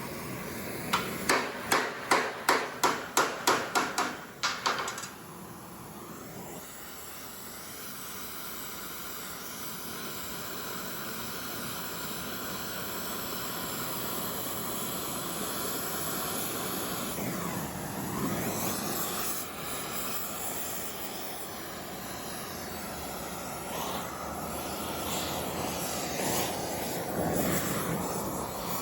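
Blacksmith's hammer striking metal, about a dozen quick, evenly spaced blows at roughly three a second. They are followed by a steady rushing hiss that slowly grows louder.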